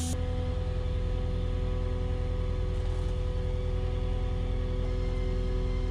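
Skid steer loader's engine running steadily, heard from inside the cab, with a steady whine over it while the loader arms hold a steel sheet raised.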